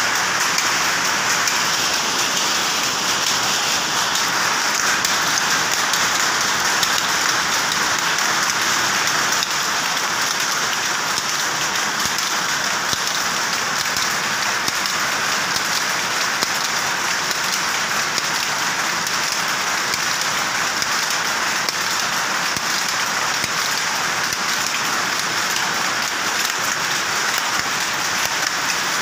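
Powerlooms running in a weaving shed: a loud, steady, dense clatter of fast fine ticks and rattles with no break.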